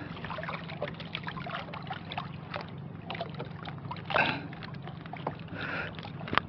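Water lapping and sloshing against a small outrigger fishing boat, over a steady low hum. Small handling clicks run through it as bait is taken from a net bag and put on a hook, with a brief louder noise about four seconds in and a sharp click near the end.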